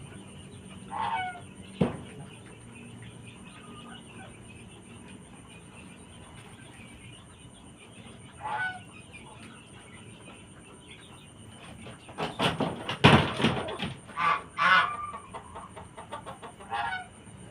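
Chickens calling: short calls that fall in pitch, about a second in, midway and near the end, with one sharp knock just after the first call. About two-thirds of the way through comes a louder flurry of squawks and scuffling.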